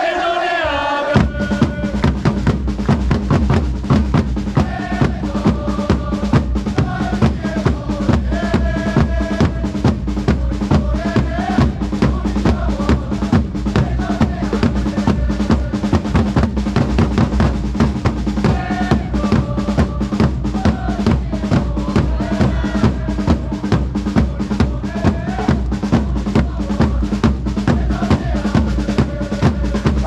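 Supporters' drum line: large bass drums struck with mallets and smaller drums hit with sticks, kicking in about a second in and keeping a fast, steady marching beat. A stadium crowd sings a chant along with the drums.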